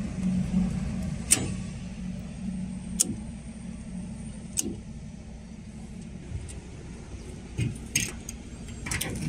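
Diesel generator engine running with a steady low hum, while circuit breakers on the control panel are snapped off with sharp clicks, about five in all, the last near the end as the cabinet door latch is worked.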